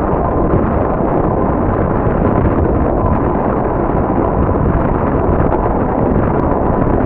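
Steady wind buffeting the microphone of a bike-mounted camera while riding, a loud, even rumbling noise.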